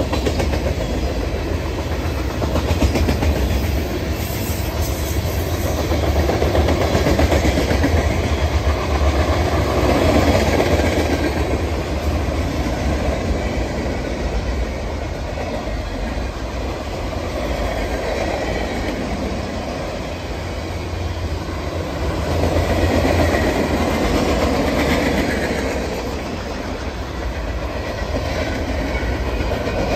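Freight cars of a long mixed freight train rolling past, a steady rumble with the wheels clattering over the rail joints. It swells and eases in loudness as the cars go by.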